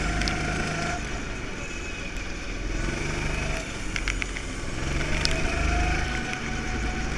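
Go-kart engine running at close range, its pitch rising and falling as the throttle opens and closes through the corners, with a few short clicks about four seconds in.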